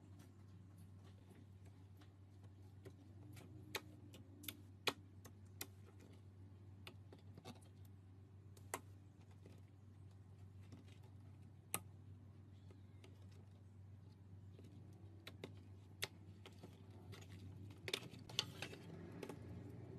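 Glitter slime being handled, giving sparse sharp clicks and pops at uneven intervals, a few louder ones standing out, over a faint low hum.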